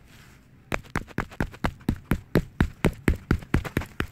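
A hammer striking a crumpled aluminium foil ball in quick, even blows, about six a second, starting just under a second in. The ball is being pounded smooth and round to make a Japanese foil ball.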